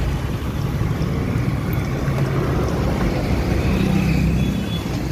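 Steady noise of passing road traffic, with motorcycle and car engines running close by.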